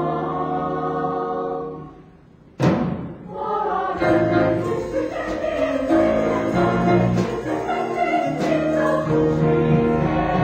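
Choral music with singing voices: a held chord fades out about two seconds in, and half a second later a sharp percussive hit starts a new passage of singing over accompaniment.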